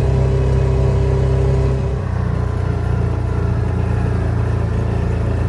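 Motor vehicle running steadily, with low engine and road noise; the sound shifts slightly about two seconds in.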